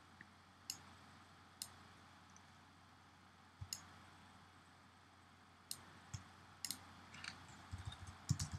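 Sparse, faint sharp clicks of a computer mouse and keyboard, about one every second or two, with a quicker run of key clicks near the end.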